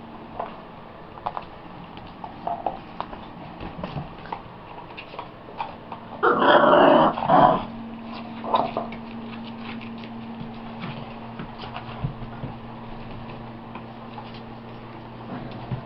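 Five-week-old boxer puppies at play: one loud puppy growl lasting over a second about six seconds in and a shorter one soon after, over scattered light clicks of paws on the pen floor. A steady low hum runs underneath.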